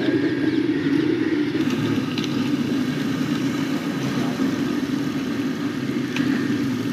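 A steady low rumble with oil sizzling around French fries in a deep pot, and a couple of light metal clinks as a wire strainer stirs them.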